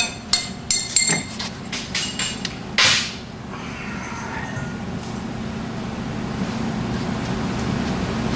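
Steel engine parts from a V8 teardown clanking and clinking as they are knocked and handled, about half a dozen sharp ringing knocks in the first three seconds. After that only a low steady background remains.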